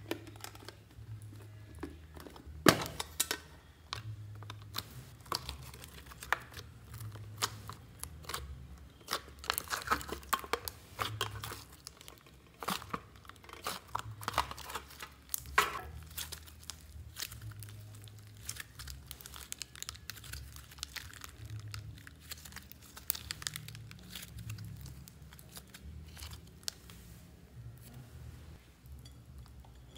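Pink slime being kneaded, pressed and pulled by hand, giving irregular crackling and popping clicks, busiest in the middle, with one sharper click about three seconds in as the metal tin is handled.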